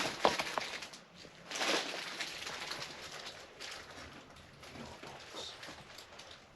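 A few sharp knocks, then a rustle of handled clutter about a second and a half in, with faint bird cooing under a quiet room.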